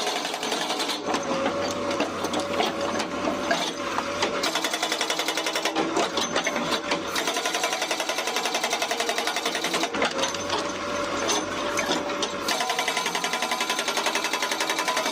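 Excavator working: a fast, even mechanical rattle over an engine note that wavers up and down in pitch.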